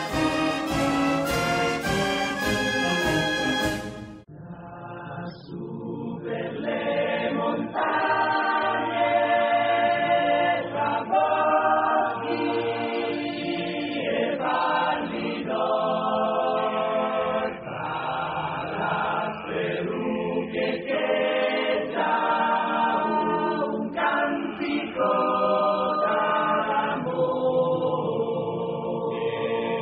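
Brass music ends about four seconds in, and a choir then sings a slow song.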